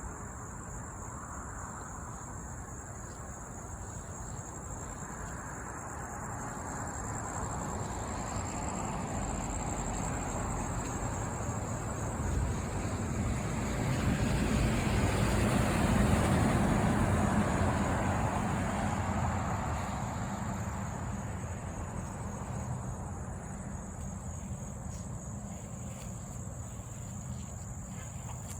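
A steady high-pitched insect trill, typical of crickets, runs throughout. A vehicle passes, its noise swelling slowly to a peak about halfway through and then fading away.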